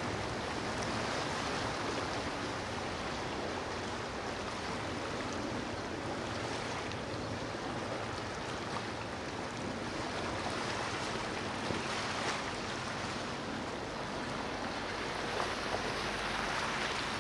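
Steady wash of ocean surf, an even rushing noise with no distinct breaks.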